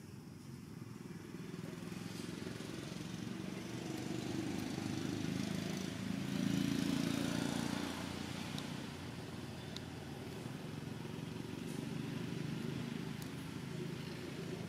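A motor vehicle's engine running, growing louder to a peak about halfway through and then easing back.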